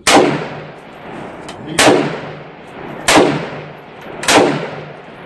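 Four gunshots fired a second or more apart, each followed by a long echoing tail.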